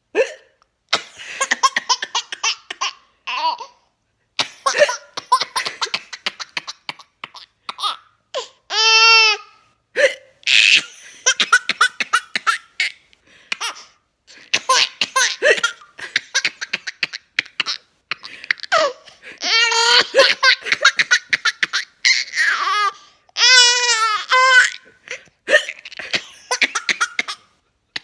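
Hearty, uncontrollable laughter in repeated short bursts, broken by hiccups. A few long high-pitched squealing laughs come about nine seconds in and again past twenty seconds.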